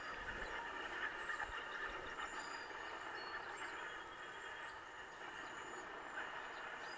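Steady outdoor background noise, like a distant hum of traffic, with a few faint, short, high chirps scattered through it and a little low rumble near the start.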